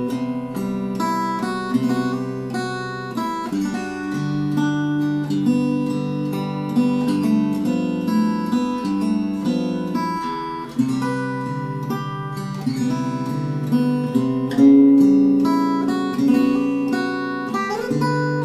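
K.Yairi MYT-1 compact acoustic guitar, solid cedar top with mahogany back and sides, played fingerstyle. Plucked melody notes ring over held bass notes.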